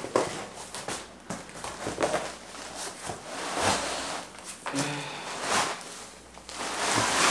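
Cardboard box rustling and scraping in irregular bursts as a large, flat, taped shipping box is handled and tilted to get its contents out.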